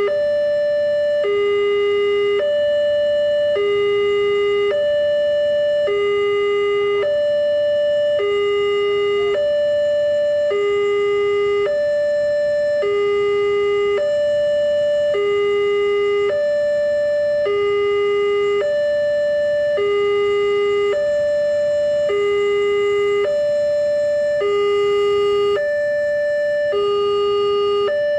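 Railway level-crossing warning alarm: an electronic two-tone signal switching evenly between a higher and a lower tone, each held about a second, warning that a train is approaching.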